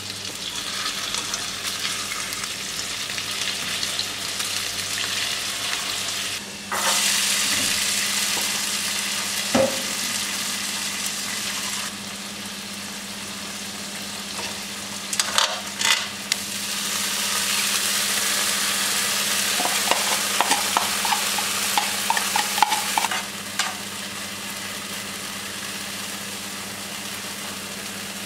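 Food frying in oil in a pan: a continuous sizzle that turns louder or quieter abruptly several times, with a utensil stirring and scraping against the pan in a few short clicks. A faint steady low hum runs underneath.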